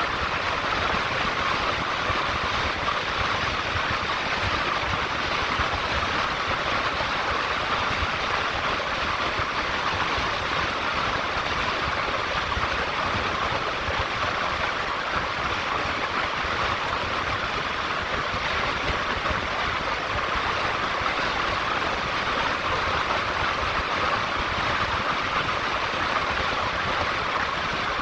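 Steady road noise of a car driving: a constant rushing hiss over a low rumble.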